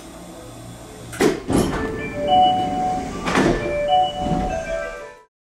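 Sliding passenger doors of an Osaka Metro 400 series train car working at a station stop: several loud clunks, the first about a second in, with short ringing tones between them over a low hum. The sound cuts off suddenly near the end.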